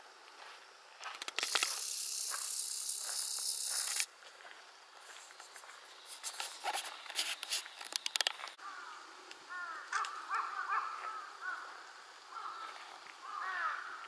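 Outdoor ambience. A loud, steady hiss starts about a second and a half in and cuts off suddenly after about two and a half seconds. A few light clicks follow, then birds call repeatedly with short chirps through the second half.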